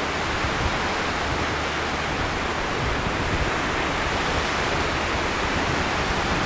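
Steady hiss of small waves washing in on a sandy beach.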